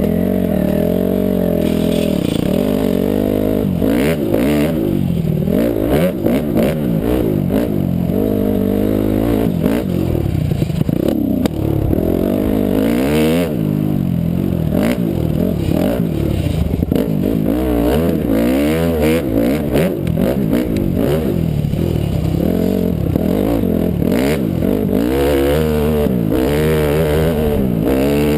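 Honda CRF250R's single-cylinder four-stroke engine revving up and down again and again as the dirt bike is ridden, with scattered clicks and knocks over it.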